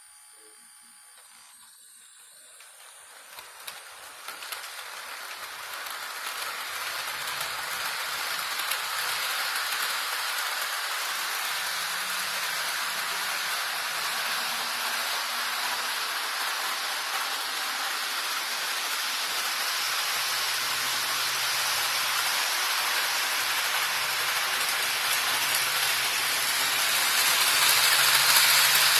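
Model trains running on a layout: a steady rushing hiss that builds up over the first few seconds, with a faint low hum under it, and swells again near the end.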